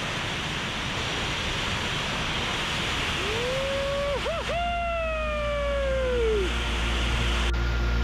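Steady roar of the Tortum waterfall's falling water. About three seconds in, a single pitched tone rises, dips briefly and then slowly falls away over about three seconds. Near the end the sound cuts to steady music.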